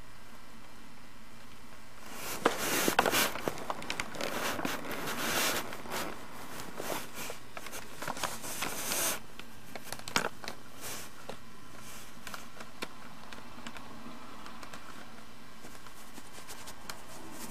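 Irregular rustling and crackling, with a few sharp clicks, close to the microphone. It starts about two seconds in, lasts roughly nine seconds, and sits over a steady hiss.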